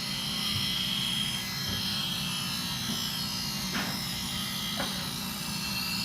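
An electric shop motor running with a steady hum and hiss, with two light clicks about four and five seconds in.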